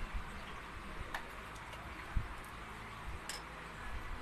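Scattered small clicks and light knocks of hands handling a plastic blender motor base, with one sharper click about three seconds in.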